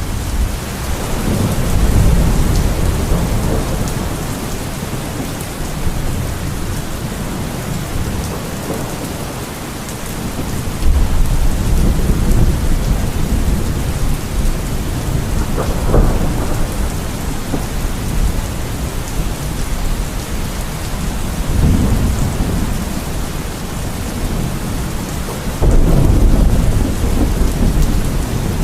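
Steady heavy rain with thunder rumbling again and again, the rolls swelling and fading every several seconds; one sharper clap comes about halfway through.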